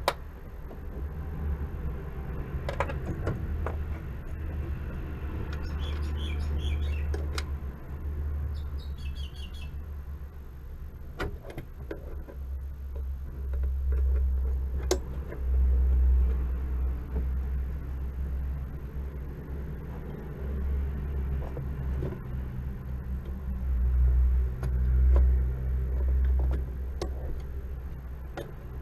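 A fluctuating low rumble with scattered clicks and knocks from a clutch cable and pedal parts being handled under a car's dashboard, and a brief light metallic jingle several seconds in.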